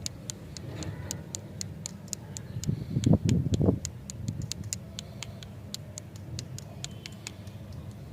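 Irregular light, sharp clicks and taps, several a second, as small hard candies and plastic packaging are handled close to the microphone, with a louder, duller rustle-and-knock about three seconds in.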